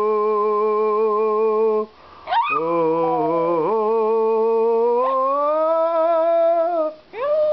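Maltese terrier howling along to a tune in long drawn-out notes that slide slowly up and down. The howl breaks off twice, about two seconds in and again near the end, and each new note begins with a quick upward slide.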